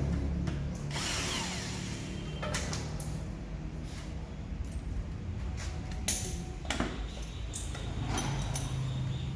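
Mechanic's tools working on car fasteners: a power tool's motor running, with scattered ratchet clicks and metal knocks.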